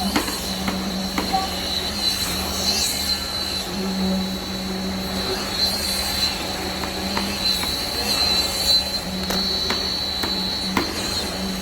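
KCP63 concrete pump truck running: a steady high-pitched whine over a low hum that swells and eases every second or two, with scattered short knocks.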